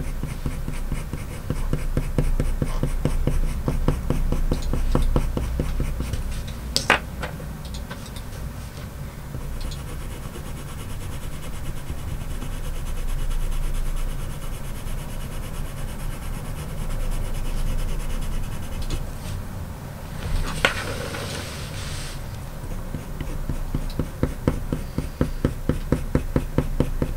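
Faber-Castell Polychromos coloured pencil scratching on paper in many quick short strokes as fine fur lines are drawn, with a sharp click about seven seconds in.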